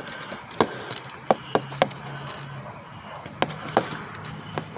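Hand tools and metal bolts clinking and knocking in a car's engine bay while thermostat housing bolts are being fitted: several sharp taps at irregular intervals.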